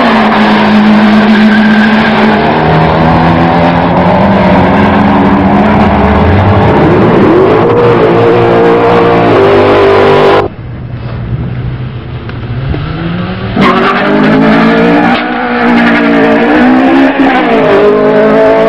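Drag racing car engine at full throttle, loud, with a steady pitch that dips and climbs again about seven seconds in. It drops off suddenly about ten seconds in, and a few seconds later another loud engine run starts, its pitch rising and falling.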